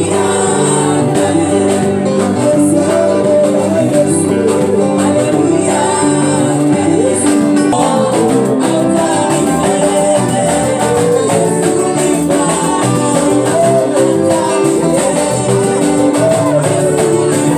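Live gospel worship music: a man sings lead into a microphone over backing singers and a band with electric guitars and keyboard, playing steadily and loudly.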